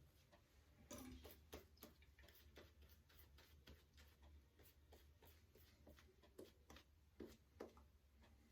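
Faint, irregular soft swishes and wet clicks of a shaving brush working lather on the face, a few a second, over a low steady hum.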